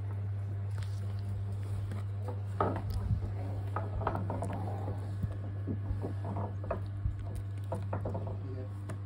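Scattered light clicks, taps and rustles of close handling, irregular and a little louder about three seconds in, over a steady low hum.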